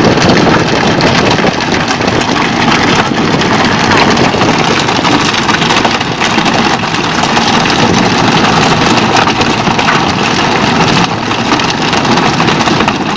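Fishing boat's engine running steadily, mixed with a dense rush of water and spray along the hull.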